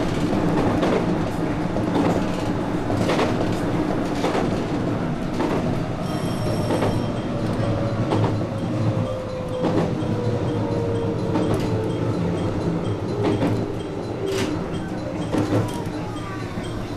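JR West 221 series electric train running, heard from inside the front car: a steady rumble of wheels on rail with sharp clacks over rail joints. Through the middle a faint whine slowly falls in pitch.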